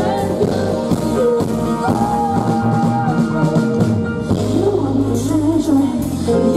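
Live amplified rock band playing: electric guitar, electric bass and a Sonor drum kit, with a long held note about two seconds in.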